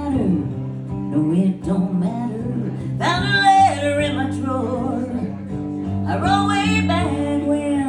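A song performed live: guitar accompaniment with a singing voice coming in about three seconds in and again about six seconds in.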